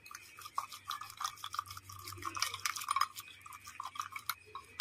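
Twin metal beaters whisking a thin besan batter in a stainless steel bowl, a rapid run of clicks and scrapes as the blades knock against the bowl.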